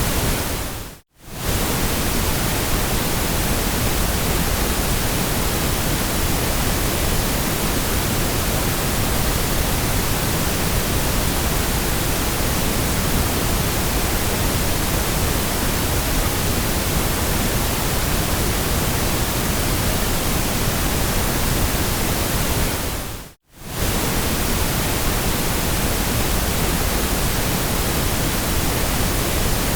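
Steady white noise, an even hiss spread from deep to high pitches. It briefly fades out to silence and straight back in twice: about a second in, and again near 23 seconds.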